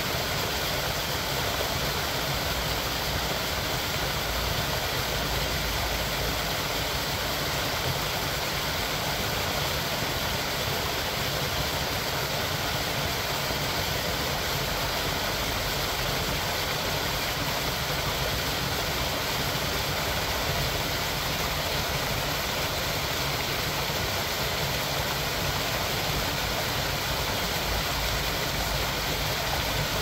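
Small waterfall on a stream, water pouring and splashing in a steady, unbroken rush.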